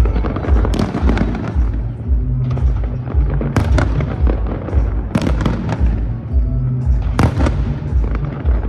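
Fireworks bursting over a musical soundtrack: sharp bangs and crackles about four times, over music with a steady low beat.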